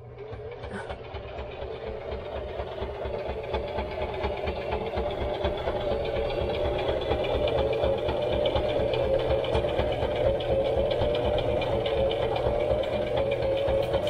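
Electric sewing machine stitching a hem along curtain fabric, running with a fast, even rattle of the needle. It builds up over the first few seconds, then runs steadily.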